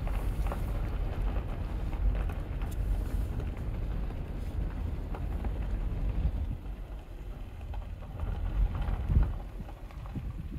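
Low rumble of a slowly moving car with wind buffeting the microphone. It eases off about six and a half seconds in, with a brief louder bump just after nine seconds.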